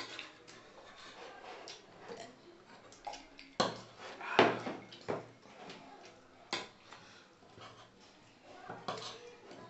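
A metal spoon clinking and scraping against a steel dinner plate during eating, as irregular sharp clicks, several of them louder in the middle of the stretch.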